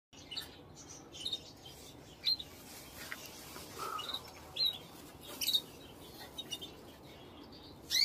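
Canaries giving short, scattered chirps, a dozen or so single calls spaced irregularly over a low background hiss.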